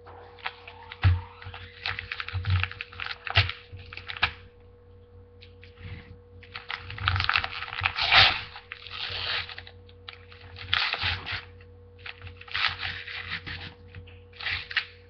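A mailing package being torn and rustled open by hand: irregular bursts of crinkling and tearing with a few sharp clicks, and a brief lull about halfway through.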